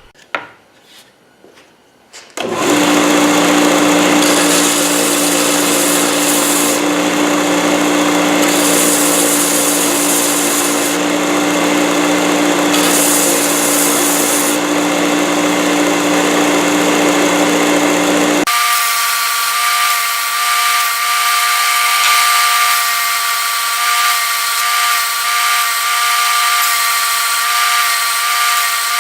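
A power tool taking paint off the edges of wooden boards: a steady motor hum under a rough scratching noise, starting after a couple of seconds of small clicks. About two-thirds of the way through it switches abruptly to a higher-pitched whine.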